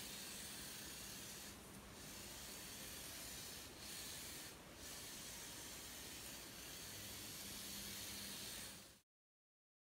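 Electric RC drift car sliding on concrete: a steady hiss and rub of its hard drift tyres with a faint motor hum, dipping briefly a few times, and cutting off abruptly about nine seconds in.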